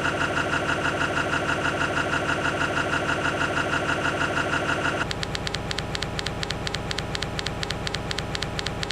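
Electronic noise music: a rapid, evenly pulsing, engine-like drone of stacked tones that switches abruptly to a harsher, buzzier pulse about five seconds in.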